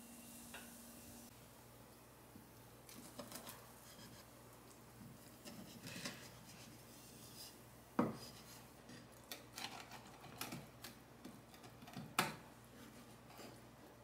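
Kitchenware being handled: scattered light clinks and knocks of dishes and utensils, with two louder knocks about eight and twelve seconds in.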